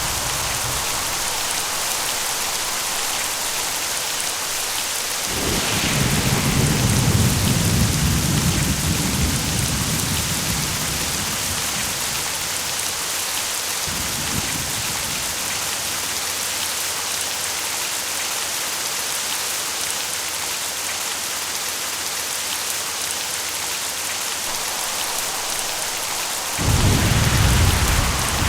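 Steady heavy rain falling, with rolling thunder: a long rumble starting about five seconds in, a fainter one midway, and a sharp clap near the end.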